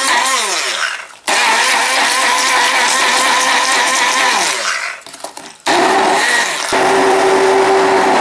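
Handheld immersion blender motor whirring in a stainless steel jug as it purées a yogurt and celery-leaf sauce. It is switched off twice, the pitch falling as the motor winds down about a second in and again about four and a half seconds in, and restarted each time, running steadier near the end.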